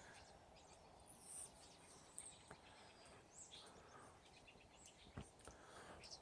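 Near silence, with faint bird chirps now and then and a couple of soft clicks.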